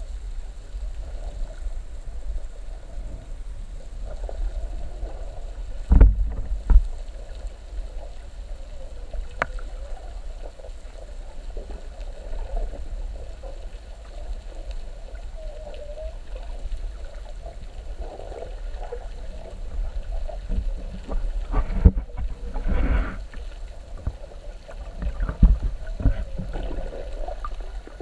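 Muffled underwater rumble of water moving around a submerged camera, with a few sharp knocks or thumps: about six seconds in, and twice more later on.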